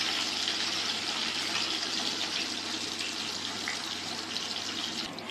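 Cauliflower florets sizzling in hot oil in an iron kadhai as they are fried until browned: a steady hiss that softens a little toward the end.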